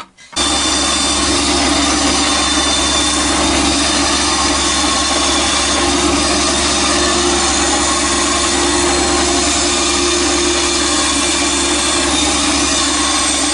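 Band saw running steadily, its blade cutting through a plywood board.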